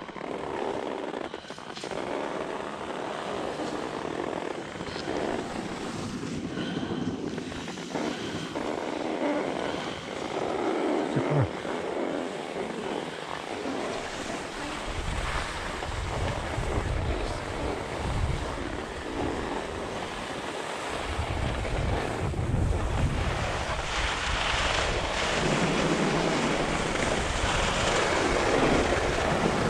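Skis hissing and scraping over groomed snow during a downhill run, with wind buffeting the microphone. The low wind rumble comes in about halfway through and grows stronger near the end.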